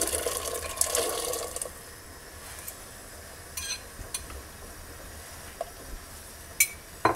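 Soaked chickpeas poured from a bowl into a pot of boiling water, splashing and pattering for about the first second and a half. Then a low steady hiss with a few light clicks and knocks.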